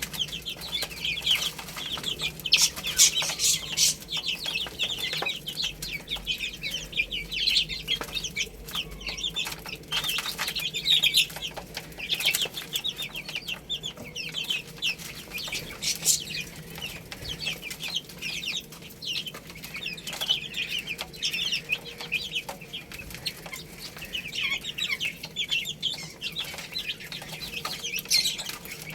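Baby chicks peeping continuously, many short high-pitched cheeps overlapping with one another, with a few sharp clicks among them.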